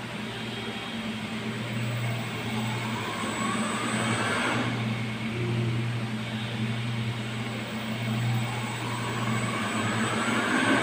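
Water pump motor running with a steady electric hum and whir, and a whine that rises twice, first about two seconds in and again from about six seconds in.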